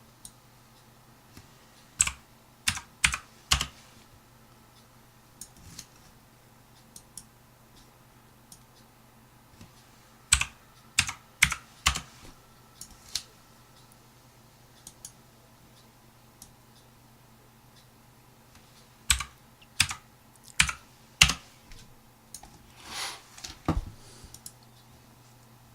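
Computer keyboard and mouse clicks, sharp and scattered in small clusters of three or four, over a faint steady low hum.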